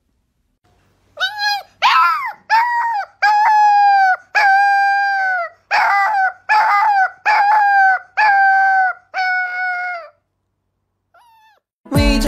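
A puppy howling: about ten high, drawn-out calls in a row, some short and some held for about a second with the pitch dropping at the end, then one faint short call.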